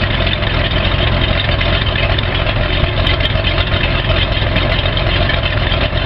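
Boat engine running steadily at idle in forward gear, with an even low rumble and no change in speed.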